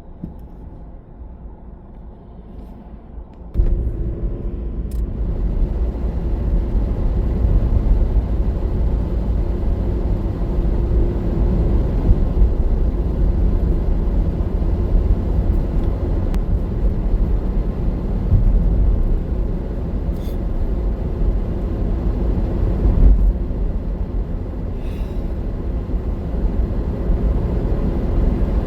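Low rumble of wind and road noise while on the move, starting suddenly about three and a half seconds in and going on steadily.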